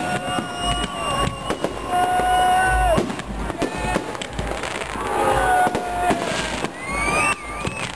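Fireworks display: whistling rockets climb with shrill tones, each held about a second before its pitch drops, over repeated sharp bangs and crackling from bursting shells.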